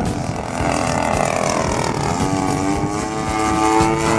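DLE-55 single-cylinder two-stroke gas engine and propeller of a 27% Yak-54 RC plane in flight, an engine still being broken in. Its drone dips in pitch about a second in, then rises and holds steady.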